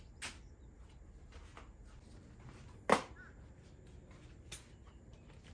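Metal parts and hand tools clicking and knocking during work on a driveshaft universal joint: one sharp knock about three seconds in, with a fainter click just after the start and another near the end.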